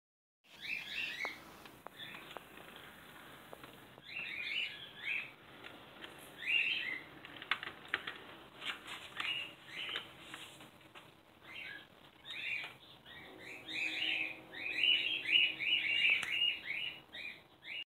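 A small bird chirping and twittering in repeated bursts of short high notes, growing faster and louder near the end. A faint steady hum comes in about two-thirds of the way through.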